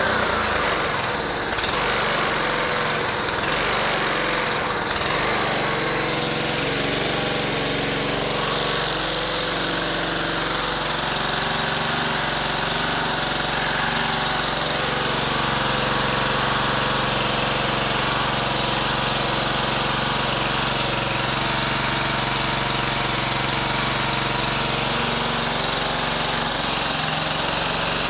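Honda HRC 216 HXA walk-behind lawn mower's engine running steadily, with a slight change in its tone right at the start.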